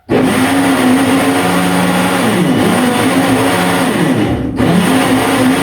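Electric blender switched on and running loudly as it blends pumpkin and milk into baby food, its motor pitch wavering and dipping under the load. It cuts out for a moment about four and a half seconds in, then starts again.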